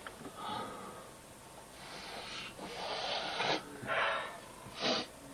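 A man sniffing and snorting hard through his nose, several separate snorts with the sharpest about four and five seconds in: snorting a powdered drug.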